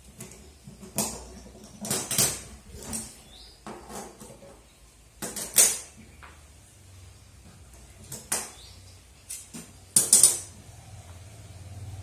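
Large steel scissors handled and snipped near folded denim trousers: irregular sharp metallic clicks and scrapes, about ten in all, the loudest about halfway through and near the end, with the rustle of the cloth being folded.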